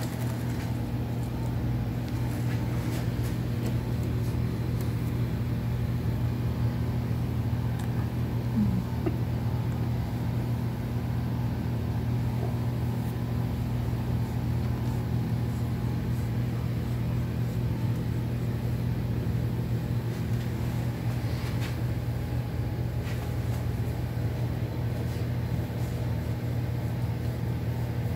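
A steady low mechanical hum from a running machine, holding one even pitch throughout.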